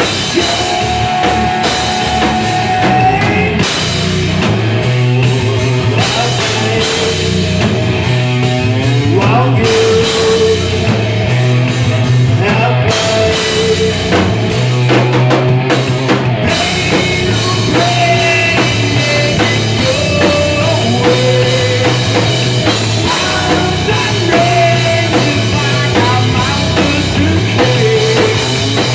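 Rock band playing live and loud: electric guitar through Marshall amplifiers over a full drum kit, with long held melody notes.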